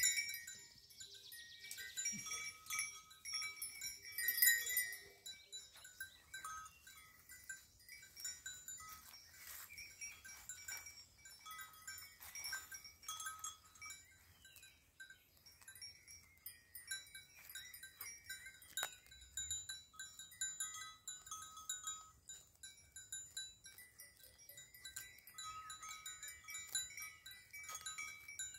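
Soft chimes tinkling on and off, clear high notes ringing at a few fixed pitches.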